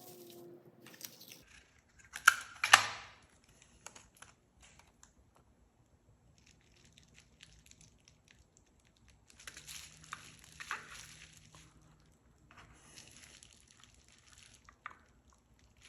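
Double-sided tape and its backing paper being handled: crinkling and rustling, loudest in a short burst between two and three seconds in, with softer stretches of rustling around ten and thirteen seconds.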